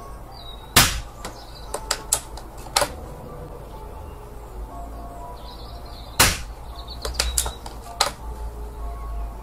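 Two suppressed shots from a Daystate Wolverine Mk1 pre-charged air rifle fitted with a Daystate reflex silencer, about a second in and about six seconds in. Each shot is followed by a few lighter clicks.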